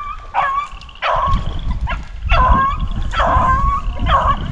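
Rabbit hounds baying on a rabbit's track, about five drawn-out calls roughly a second apart, with a low rumble underneath from about a second in.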